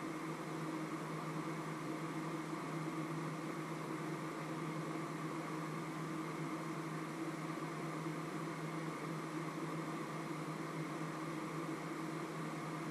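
Steady mechanical hum with a few fixed tones over a light hiss.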